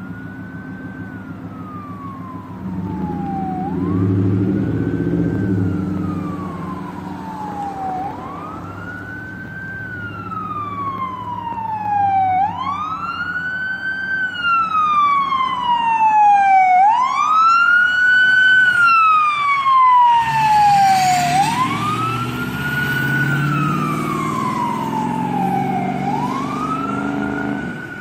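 Ambulance siren on a slow wail, rising and falling about every four and a half seconds and growing louder as the ambulance approaches. Engines of cars passing close by can be heard under it at times.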